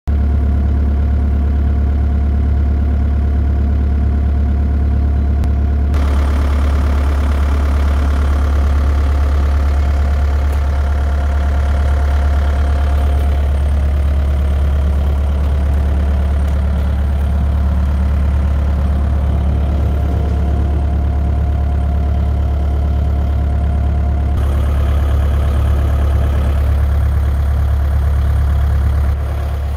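Diesel engine of a 2006 Bobcat 331G mini excavator idling steadily.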